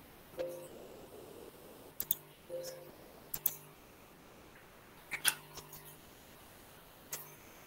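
A scattering of sharp clicks and taps from a laptop being worked, keys or mouse, some in quick pairs, heard through video-call audio.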